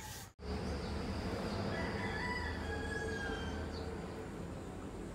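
After a brief dropout near the start, a long, drawn-out animal call over a steady low hum.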